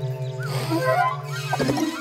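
A cartoon elephant's vocal sound effect, a short call sliding up and down in pitch, over steady background music.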